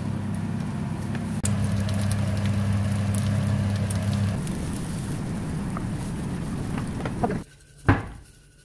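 Eggs frying in a non-stick pan: a light crackling sizzle over a steady low hum, with small scrapes and taps of a wooden spatula. Near the end the sound drops off suddenly, followed by one sharp clack.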